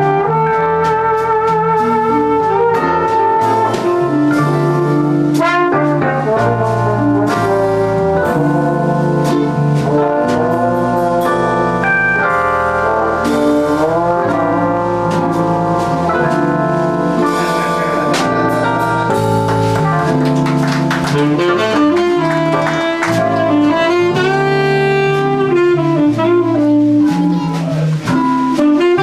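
Small live jazz combo jamming: a horn carries the melody over electric bass, keyboard, guitar and a drum kit, with the saxophone playing near the end.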